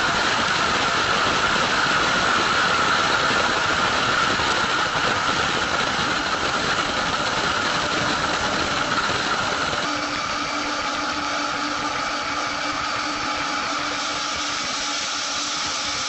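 Military jet's engines running at high power with a steady rushing noise as the aircraft rolls down the runway, heard from a camera mounted under the fuselage. About ten seconds in, the noise eases slightly and a steady hum comes in.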